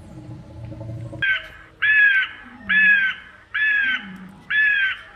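A low rumbling roar fades out about a second in. Then a harsh, crow-like cawing call repeats five times, about one call a second, each call alike.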